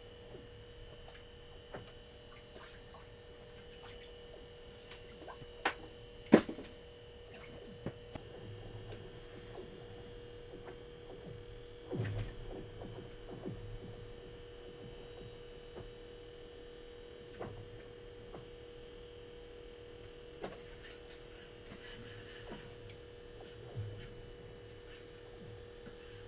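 A steady electrical hum under scattered light clicks and knocks from hands handling fishing gear, with one sharp knock about six seconds in.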